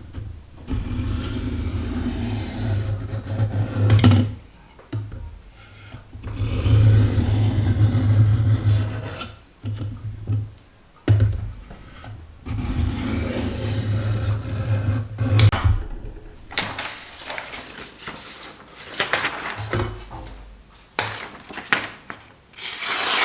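A knife blade rubbed and scraped along a sharpening stone or strop, in three long stretches of about three seconds each, then shorter scrapes and knocks near the end.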